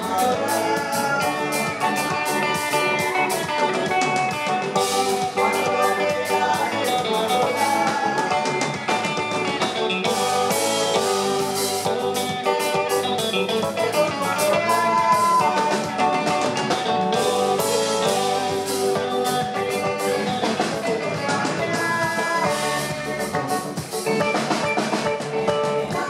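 Live band playing a steady-beat song: drum kit, electric bass and electric guitar.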